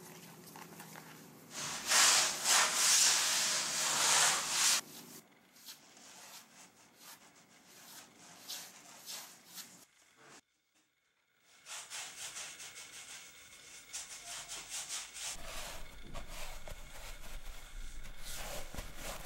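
Rubbing and scraping sounds: a loud stretch of rubbing about two to five seconds in, a moment of silence around the middle, then a run of quick strokes of a paintbrush dragged across canvas.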